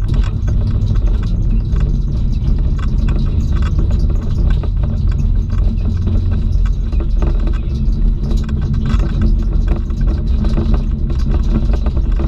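Cabin noise of a Subaru Impreza WRX STI driving on a dirt track: a steady low rumble of the turbocharged flat-four engine and tyres, with frequent small clicks and rattles.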